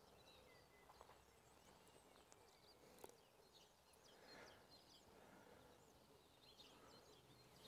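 Near silence: faint outdoor ambience with scattered distant bird chirps.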